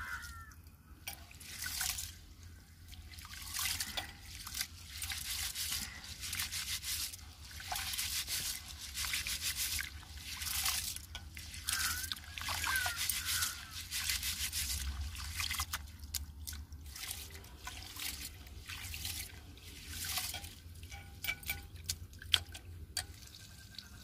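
Rice being washed by hand in a terracotta bowl of water: repeated sloshing and splashing as the hands rub and stir the grains, with a few sharper clicks and drips near the end.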